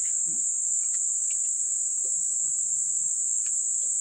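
Steady, high-pitched insect drone, crickets or cicadas calling without a break.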